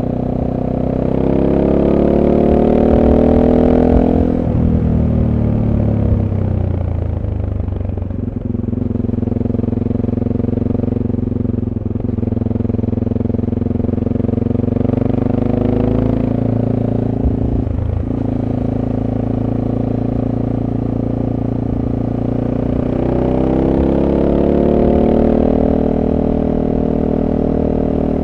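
SWM Super Dual T motorcycle's single-cylinder engine running through its stock exhaust, heard on board while riding. The revs climb over the first few seconds and fall away about four seconds in, then hold steady. They rise again with a brief dip near eighteen seconds, and climb once more near the end.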